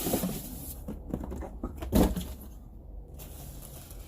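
Handling noises from a small plastic mini fridge and its contents: light rustling and a few short knocks, the loudest about two seconds in.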